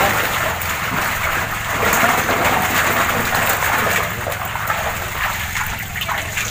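Water splashing and sloshing in a shallow concrete catfish pond as a man wades and scoops catfish with a hand net, with water streaming off the net as it is lifted near the end.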